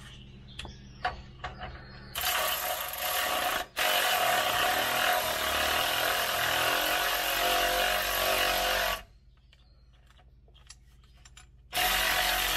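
Air ratchet running transmission bolts into the bellhousing: a steady hiss of air with a whirring motor for about seven seconds, cut by a short break just after it starts. It stops, a few light clicks follow, and it runs again near the end.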